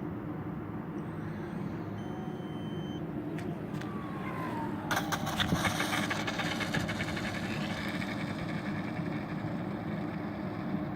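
RC model Airbus A320 landing: a falling whine just before touchdown, then about five seconds in its landing gear hits the runway with a burst of clattering. The clatter fades into a lighter rattle as the model rolls out a long way.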